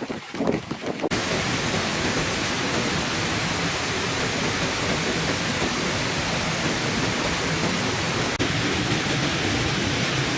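Small garden waterfall splashing into a fish pond: a steady, even rushing that starts abruptly about a second in.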